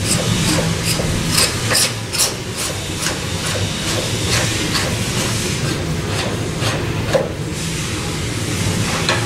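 Threaded steel sections of a downhole running tool being spun together by hand in a pipe vise: light metallic clicks, several a second for the first few seconds and fewer after, over a steady low hum.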